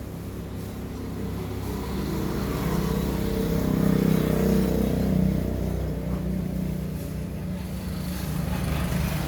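An electric motor running with a steady low hum that grows louder toward the middle and then eases back.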